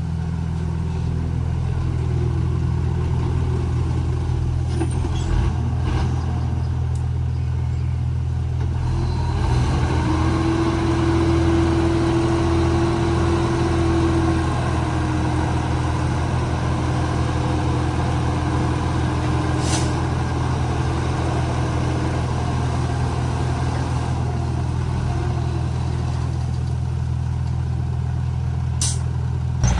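Komatsu D31P crawler bulldozer's diesel engine running steadily under work. About ten seconds in, more mechanical clatter and a steady higher whine join, fading out after about twenty-two seconds, with a few sharp clicks scattered through.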